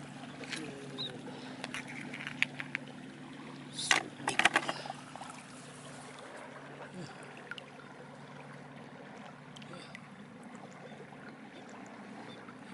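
Flowing water over a steady low hum, with scattered sharp clicks in the first few seconds and a quick cluster of loud clatters about four seconds in.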